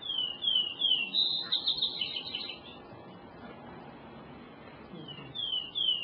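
Recorded vesper sparrow song, a plaintive phrase of three or four clear downslurred whistles followed by a quick jumbled trill. After a pause of about two and a half seconds the song begins again near the end.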